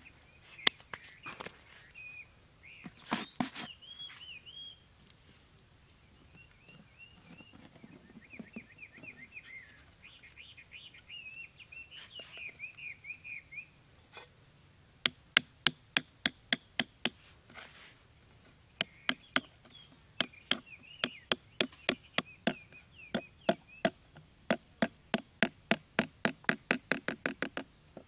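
Light hammer taps, a long run of sharp knocks two to three a second that come faster near the end, starting about halfway through. Small birds chirp in the background.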